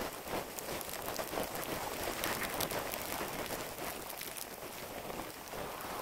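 Snowboard sliding and scraping over fresh snow, with wind on the microphone, sped up six times into a steady hiss full of fast small crackles.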